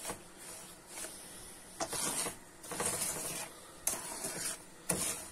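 Wooden spoon stirring and scraping semolina roasting in butter and oil in a frying pan: a dry, rasping scrape in repeated irregular strokes.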